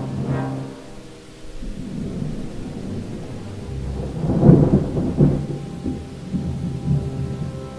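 Thunder rolling over rain, swelling to its loudest about halfway through and then dying away.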